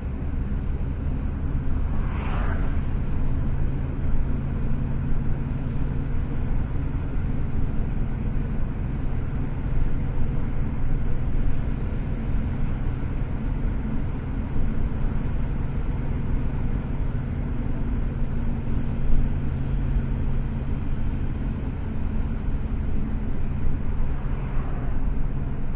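Steady engine and road noise of a moving car, a continuous low drone, with a brief higher sweep about two seconds in.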